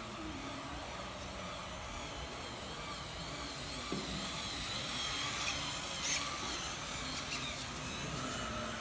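Small electric drive motor of a hobby-scale robot car whining as it drives past, its pitch wavering up and down as it changes speed, over a steady hum of the hall. A short sharp click about six seconds in.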